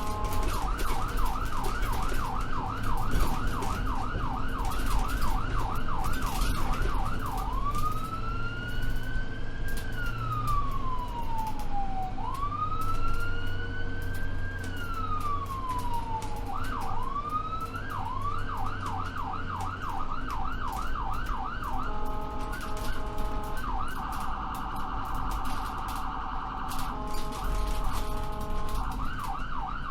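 Ambulance electronic siren cycling through its tones: a fast yelp of about three sweeps a second, then two slow rising-and-falling wails, the yelp again, then stepped alternating tones with a rapid warble in the last third. A steady low engine and road drone runs underneath.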